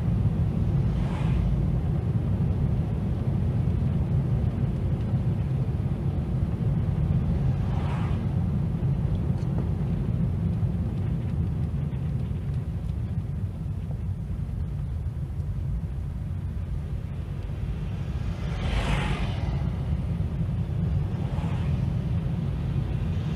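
Steady low rumble of a moving car's engine and tyres, heard from inside the cabin through a dashcam. Oncoming cars whoosh past about four times.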